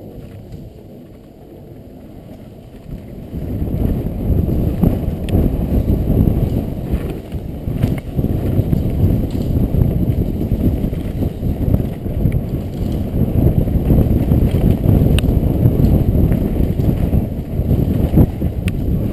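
Mountain bike descending a dirt trail at speed: a dense rumble of tyres and wind buffeting the microphone, with scattered clicks and knocks from the bike. It is fairly quiet at first and grows loud about three seconds in as the bike picks up speed.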